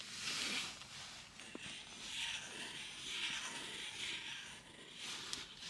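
Stubby wax crayon scribbling on paper: a faint scratchy rubbing in several short spells of strokes.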